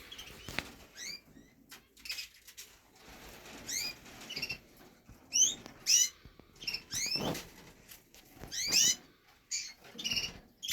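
Domestic canaries giving short, rising chirp calls, repeated in little clusters every second or so, with some wing flutter and rustling in the cages.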